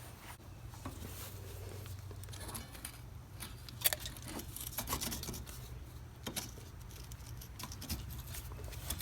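A few light, sharp metallic clicks and clinks of parts or tools being handled, about four, five and six seconds in, over a low steady hum.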